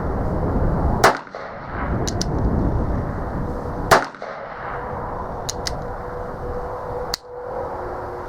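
Uberti 1875 Schofield replica revolver firing .45 Long Colt, three single shots about three seconds apart, each a sharp crack with a short ringing tail. Light paired clicks come between the shots.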